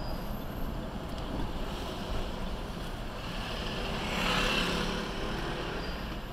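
Driving noise heard from inside a truck cab: steady engine and tyre noise, with a louder swell that rises and falls about four to five seconds in.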